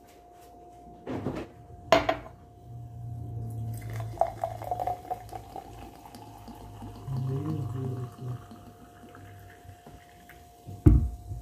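Cola poured from a plastic bottle into a tall glass, splashing and fizzing as the glass fills. A couple of sharp knocks come before the pour, and a low thump near the end.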